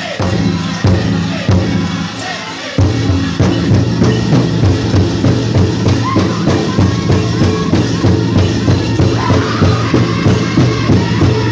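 Powwow big drum struck by a drum group with a steady beat of about two and a half strokes a second, with singers' high voices over it and dancers' ankle bells jingling. The beat is sparser at first and becomes a dense, even pounding about three seconds in.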